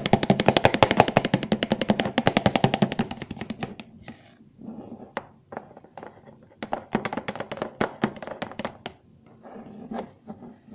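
Sticky homemade shampoo-and-toothpaste slime being squeezed and kneaded by hand, giving off wet clicks and pops. They come fast and even for about three seconds, then sparser and irregular.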